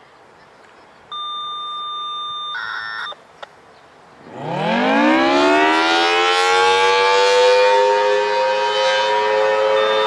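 A Federal Signal Thunderbolt 1000T dual-tone rotating siren winds up from a standstill about four seconds in. Its pitch climbs steeply, then levels off into a loud, steady two-note chord as the horn turns. Before it starts there is a steady electronic beep for about a second and a half, then a short warbling tone and a click.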